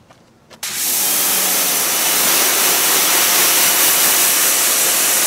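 Pressure washer spraying a wide fan of water onto a car's rear hatch and glass: a loud, steady hiss that starts suddenly about half a second in.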